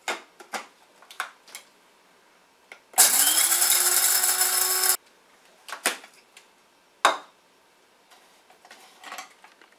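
Clicks as the grinder's lid is handled, then the Shardor CG638B electric blade coffee grinder's motor runs for about two seconds, spinning up and stopping sharply. A couple of sharp clacks follow as the lid is twisted off.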